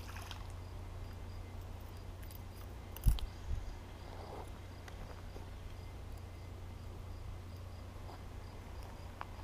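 An insect, cricket-like, chirping faintly in a steady, evenly spaced rhythm over a low rumble, with a single sharp knock about three seconds in.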